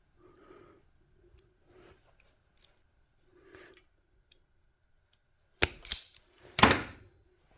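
Two sharp snips of a hand cutting tool, about a second apart near the end, after a few faint handling noises.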